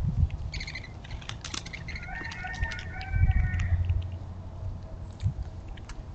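A squirrel eating a nut close to the microphone, with sharp clicks and low thumps. Background animal calls come in twice: a short call about half a second in, then a longer, clucking-like call from about two seconds to nearly four.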